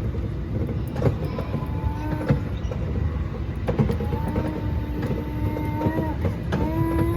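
Mall ride-on train running: a steady low rumble with scattered clicks of the wheels on the track. Several held, flat-pitched tones rise over it, the longest about two seconds each in the second half.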